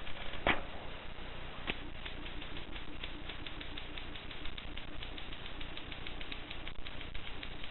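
1950s Voss manual typewriter being typed on: two single strikes, then a quick, even run of clicks from about two seconds in, stopping shortly before the end.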